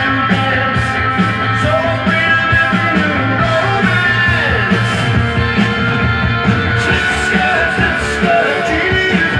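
Rock song with singing, electric guitar and a steady drum beat, played from a vinyl record on a Dual 1257 belt-drive turntable.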